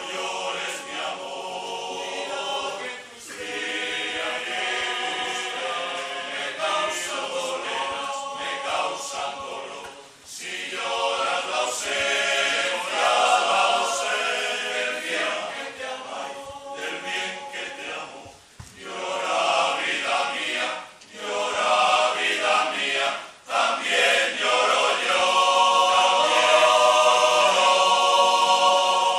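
Men's choir singing a cappella in several parts. Phrases are broken by short breaths, and the song ends on a loud held final chord near the end.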